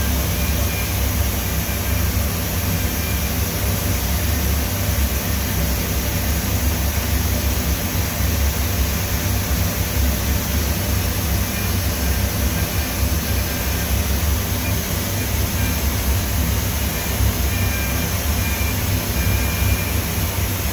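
Hwacheon G1 graphite CNC machining center running while its 24,000 rpm spindle mills a graphite block with a small end mill: steady machine noise with a strong low rumble.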